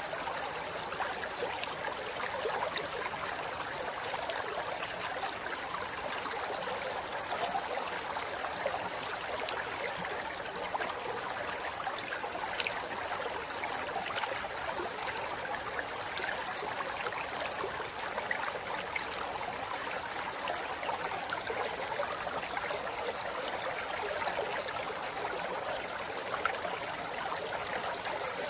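River water flowing and splashing over rocks, a steady rushing with small gurgles and splashes throughout.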